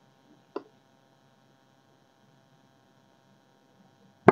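Near silence with a faint steady electrical hum, broken by a short tap about half a second in and a sharp click at the very end.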